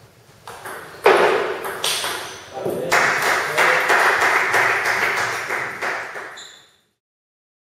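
Table tennis ball clicking off the bats and the table in a short rally, with loud voices in the hall after the point. Everything fades to silence about seven seconds in.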